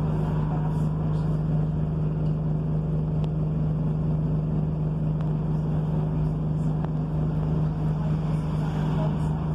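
Bus engine running steadily, heard from inside the passenger saloon: an even, unchanging low hum with no rise or fall in pitch.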